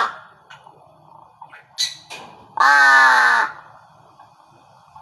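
A captive bird gives one long, harsh, caw-like call about two and a half seconds in, with a brief high sound shortly before it.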